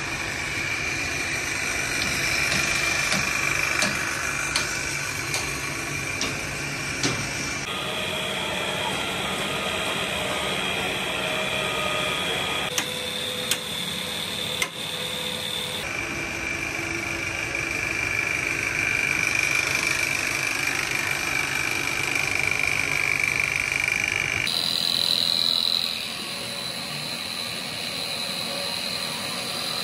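Foundry machinery running steadily, with a high whine whose pitch changes abruptly a few times, and several sharp clicks and knocks.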